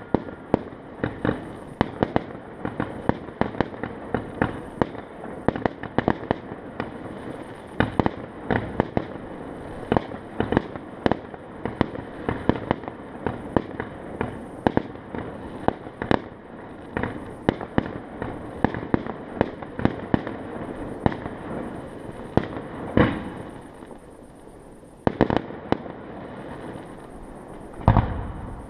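Fireworks going off: a rapid, irregular run of sharp bangs and pops, several a second, over a continuous crackle, with a short lull near the end and a heavy bang just before it ends.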